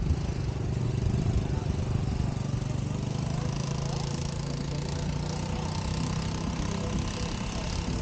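Steady low mechanical hum, like an engine running at idle, over a dense background noise, with faint voices.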